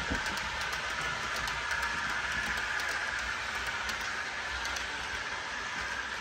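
HO scale model passenger cars rolling along the track: a steady rolling hiss of small metal wheels on rail, with faint ticks scattered through it.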